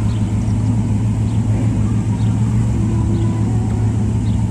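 A motor vehicle's engine running steadily at low parade speed, a constant low hum.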